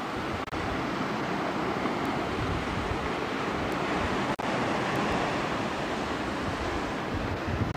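Ocean surf breaking and washing over a rocky shore, a steady rushing, with wind buffeting the microphone.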